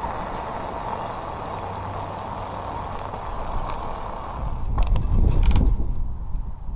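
Car engine running steadily, then a louder low rumble with a few sharp clicks for about a second near the end.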